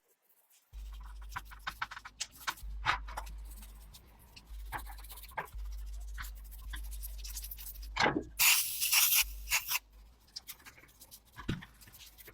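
Small metal engine parts clicking, scraping and being brushed as the internal gears and crankshaft are cleaned and lubricated, over a steady low hum. A loud hiss, like a spray or an air blast, lasts about a second near the end.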